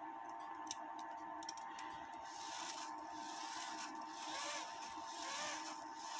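Small metal clicks and rubbing from a cuckoo clock movement being handled and worked through a function test, over a steady hum.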